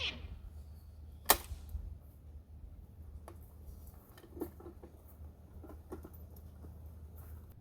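A single sharp click about a second in, then scattered faint clicks and light knocks over a low steady hum.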